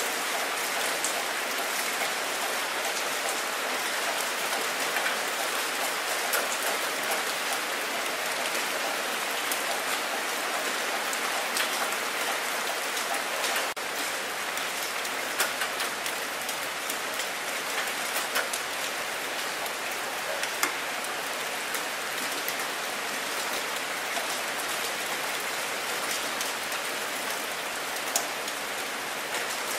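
Steady rain falling onto open water: a dense, even hiss with scattered sharper drop splashes.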